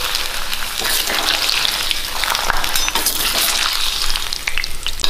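An appalam (papad) sizzling and crackling as it deep-fries in hot oil, pressed with a slotted spoon and lifted out of the pan.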